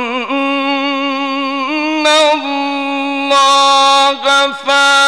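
Male Quran reciter chanting in the melodic mujawwad style, holding long ornamented notes. The voice wavers with vibrato at first, then holds steady, breaking off briefly about four seconds in.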